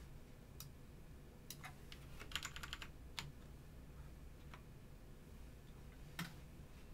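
Computer keyboard being typed on: a quick run of keystrokes about two seconds in, among scattered single clicks, all faint over a low steady hum.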